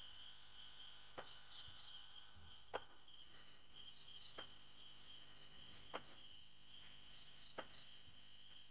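Crickets and other night insects chirping steadily, with a higher three-note chirp repeating every two to three seconds. Faint short clicks come about every second and a half.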